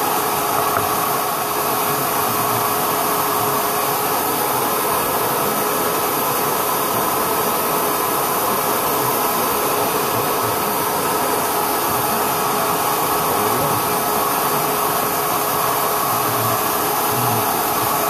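Electric wood router mounted upside down in a homemade router table, running steadily at full speed with an even high-pitched whine.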